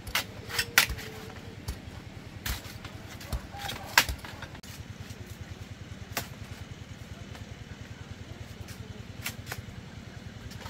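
Irregular sharp knocks and clicks, several close together in the first four seconds and sparser after, over a steady low motor hum.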